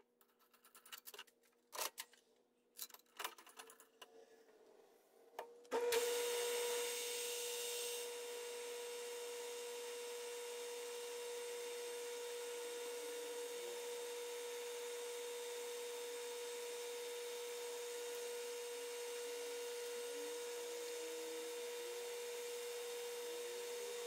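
Clicks and knocks as a small brass part is handled and set into a collet in a metal lathe, then about six seconds in the lathe starts up and runs steadily with a held whine. Near the end a twist drill is feeding into the spinning brass part.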